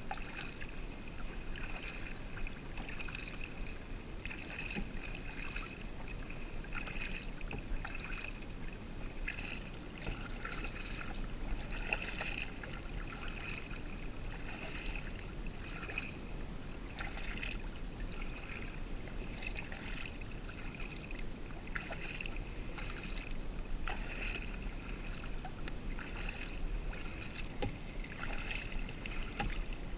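Two kayak paddles dipping into calm water, with small splashes and drips every second or so as a tandem kayak is paddled along.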